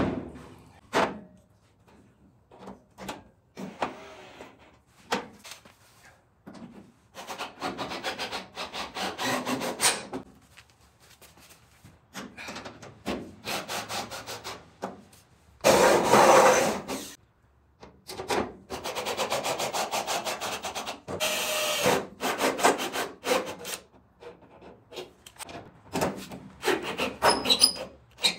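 Cordless drill working into the sheet-metal roll pan and truck body in several short bursts, with knocks and clicks of the panel and tools being handled between them.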